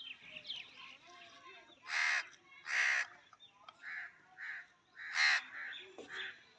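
Crows cawing repeatedly: three louder harsh caws about two, three and five seconds in, with softer caws between.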